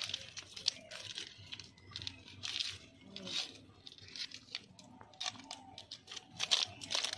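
A hand turning and rubbing turmeric-coated raw pomfret (rupchand) pieces in a plastic mesh basket. The wet fish pieces shift against each other and the basket in irregular bursts, several a second.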